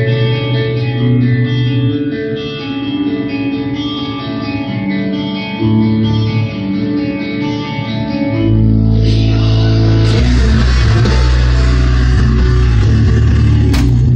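Rock song played back through a Sony DAV-DZ175 home-theatre system's speakers and subwoofer. Clean picked electric guitar over a bass line gives way, about eight seconds in, to the full band coming in louder and denser, with heavy subwoofer bass.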